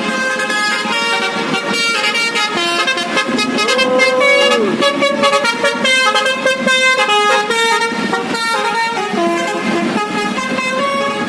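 Basuri musical horn playing a quick melody of steady horn notes, one after another, with one note that bends up and back down about four seconds in.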